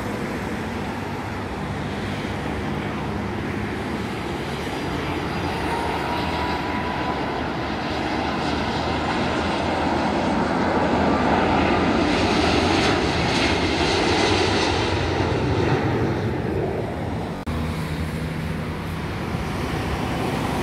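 Twin-engine Airbus A330 jet airliner on landing approach passing overhead. The engine noise builds to its loudest about two-thirds of the way through. Near the end the sound cuts abruptly to a quieter steady background.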